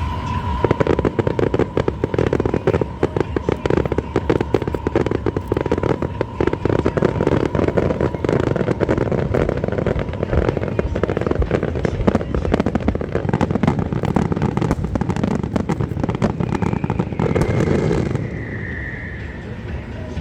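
Aerial fireworks going off in a dense, rapid run of crackling bursts that stops a couple of seconds before the end.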